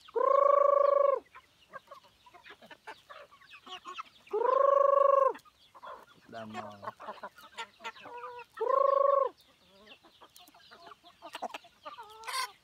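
Free-range chickens clucking and chirping softly, broken three times by a loud, drawn-out call of about a second, each held at one even pitch and spaced about four seconds apart.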